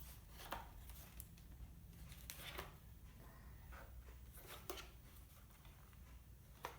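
Quiet room tone with a few faint, scattered clicks and rustles of a plastic LED work lamp being handled.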